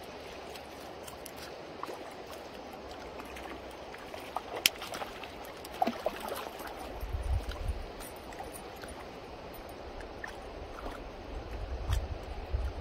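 Shallow river flowing steadily, with a few sharp clicks and small splashes near the middle and a low rumble of wind on the microphone in the second half.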